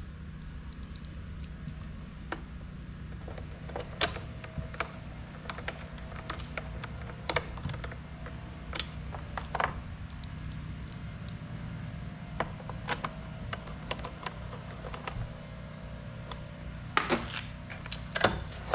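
Screwdriver clicking and ticking against screws and the plastic recoil starter housing of a Briggs & Stratton mower engine as it is fastened down, in irregular clicks with a cluster near the end. A steady low hum runs underneath.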